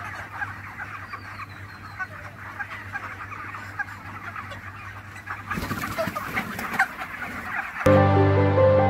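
A flock of broiler chickens clucking, many short calls overlapping, over a steady low hum. Music cuts in abruptly near the end.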